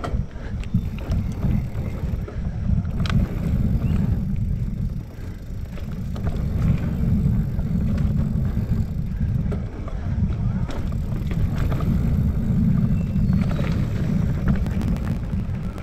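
Wind buffeting a helmet- or chest-mounted action camera's microphone as a mountain bike rolls fast over a dirt forest trail, a steady low rumble with tyre noise, broken by a few sharp clicks and rattles from the bike over bumps.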